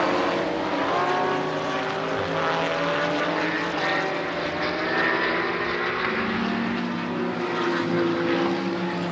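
Several endurance race cars' engines running hard at once, their overlapping notes rising as they accelerate and dropping and climbing again through gear changes.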